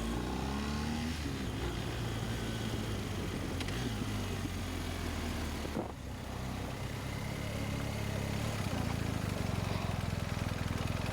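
BMW R1250GS boxer-twin engine running steadily under a haze of wind noise. It drops off briefly about six seconds in, then runs on steadily again.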